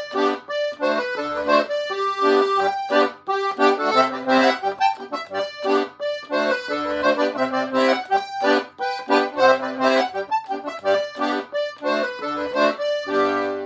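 Dino Baffetti button accordion playing a schottische: a melody over bass-button chords in a steady, lilting rhythm. The tune ends on a held chord near the end.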